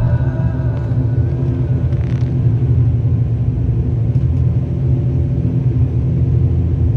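Turboprop engines of a high-wing regional airliner running, heard inside the cabin as a steady low drone with several steady hum tones.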